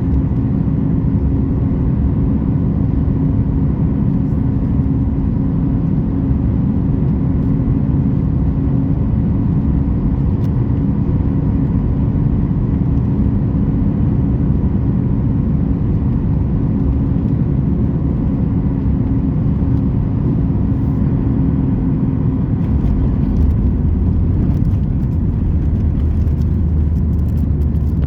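Steady cabin noise inside a Boeing 737 MAX 8, heard from a seat by the wing: the CFM LEAP-1B engines running with a low rumble under them. A steady hum stops about 23 seconds in as a deeper rumble takes over, with faint light rattles near the end.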